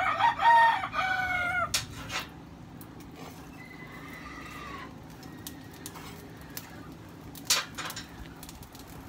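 A rooster crows loudly once, about two seconds long, and a second, fainter crow follows a couple of seconds later. A few sharp knocks sound in between and near the end.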